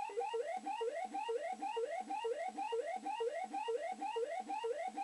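Maygay Moon Bug fruit machine's electronic sound effect: a rising bleep repeated rapidly, about four times a second, from the machine's speaker.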